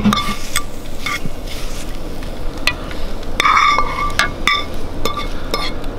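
A utensil scraping and clinking against a metal frying pan as scrambled eggs are served out onto a plate: a string of sharp clinks, several of them ringing briefly, over a faint low hiss.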